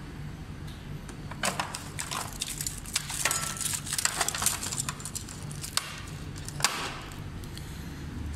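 Metal spoons clattering in a plastic cutlery caddy as a hand rummages through them and picks one out: a run of sharp clinks and rattles over a steady low hum.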